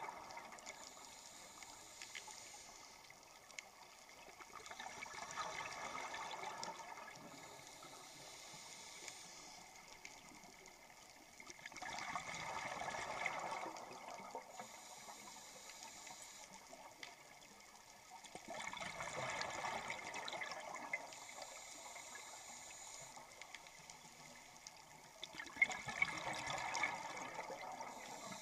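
Scuba diver breathing through a regulator underwater: a hiss on each inhale, then a louder burst of bubbles on each exhale, about every seven seconds, four times.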